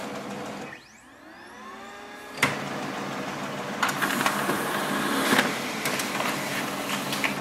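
Xerox B230 laser printer printing a test page: a motor whine rising in pitch for about a second and a half, a sharp click, then the steady whir and clatter of the paper being pulled through, with several clicks along the way.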